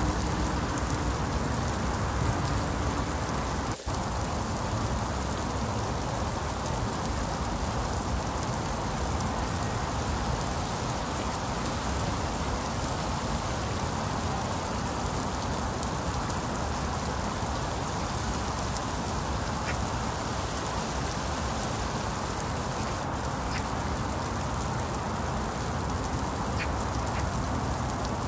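Heavy rain falling steadily. A few faint, short calls come through the rain near the end.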